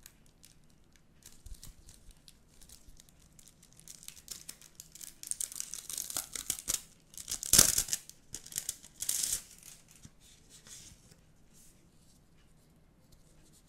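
Clear plastic sleeve crinkling as gloved hands pull it open and rip it apart, the crackle building to its sharpest rip about halfway through, with a second burst soon after, then only soft handling taps as the photocard is slid out.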